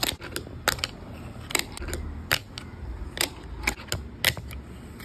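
Fingerboard tricks on a hard surface: about seven sharp, irregularly spaced clacks as the small deck and its metal trucks pop and land.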